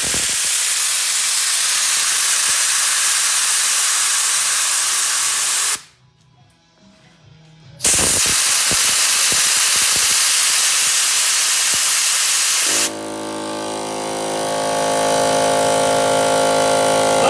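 Compressed air hissing out of a Harbor Freight air compressor's pressure release valve, held open for about six seconds, stopping, then released again for about five more. Then the compressor's motor and pump start and run steadily, slightly louder toward the end.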